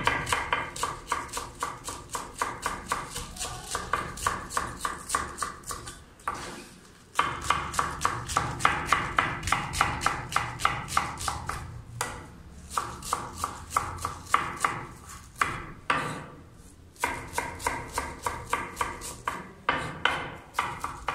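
Chef's knife rapidly shredding cabbage on a wooden chopping board: quick, even knocks of the blade on the board, several a second, with a few short pauses between runs.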